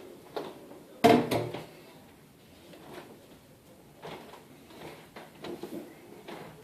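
A sudden loud clunk with a short rattle about a second in, like a door, window or drawer being moved, followed by a few softer knocks and handling noises.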